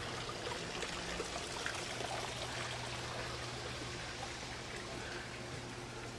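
Steady trickle of water from a garden pond, with a low steady hum underneath.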